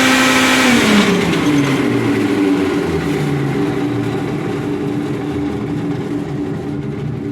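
Belt-driven air handler blower and motor running with a loud noise that is typical of a bad bearing, then switched off about a second in and coasting down, its hum falling slowly in pitch and fading.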